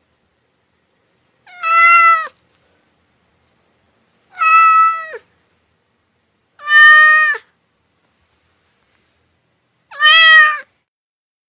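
A domestic cat meowing four times, each meow under a second long with a drop in pitch at the end, spaced about two and a half to three seconds apart.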